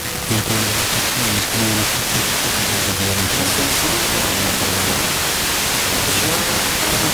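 Heavy hiss from a Blaupunkt car radio on 99.75 MHz FM, picking up the sound carrier of Armenian TV channel R5 by sporadic-E skip. A faint voice comes through in broken fragments under the noise, the sign of a weak long-distance signal.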